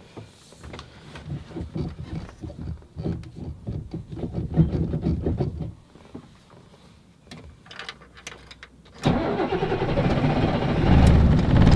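Old Mercedes bus's diesel engine being started: uneven chugging for several seconds, a short lull, then it catches and runs steadily from about three-quarters of the way through. This is a warm start after letting the glow plugs charge for a couple of minutes.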